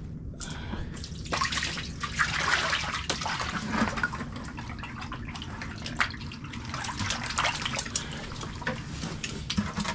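Water and a load of yellow perch and burbot pouring and splashing out of a tipped plastic bucket onto the ice, with many short wet slaps as the fish land.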